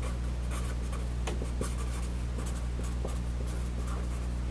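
Sharpie felt-tip marker writing on paper, in many short quick strokes of the tip across the page, over a steady low hum.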